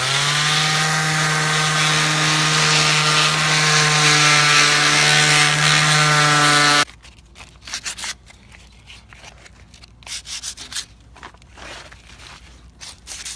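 Electric power sander spinning up and running steadily against cured fiberglass body filler, a steady motor hum with hiss, cutting off abruptly about seven seconds in. After that come quieter, irregular rubbing strokes.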